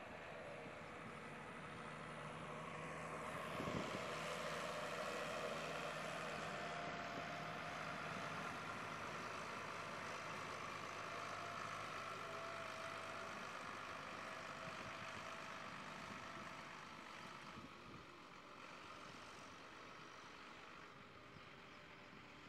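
Tractor engine running as the tractor drives past, growing louder to a peak a few seconds in and then slowly fading.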